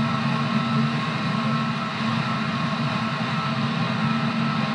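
JR 211 series electric train running at a steady speed: an even rumble from the running gear with the hum of its traction motors, which have external cooling fans. No rail-joint clicks.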